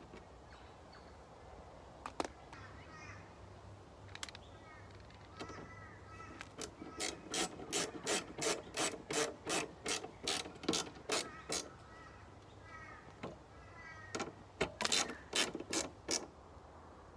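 Ratcheting screwdriver clicking back and forth in two runs of about three clicks a second, driving in the screws that hold a metal number-plate back plate to the car, with some squeaky scraping between the runs.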